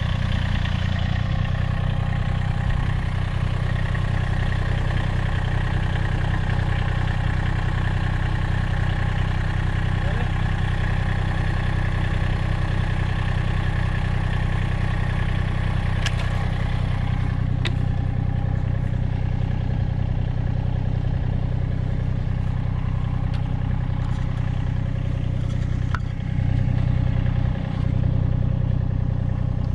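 Massey Ferguson GC1720 compact tractor's three-cylinder diesel engine running steadily while pulling a wire fence tight with chains, with a couple of sharp clicks partway through and a brief rise in engine level near the end.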